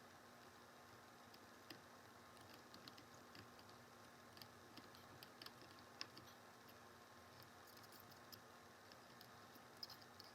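Near silence with faint, irregular small clicks and taps: a soldering iron tip touching solder joints on a circuit board while reflowing them.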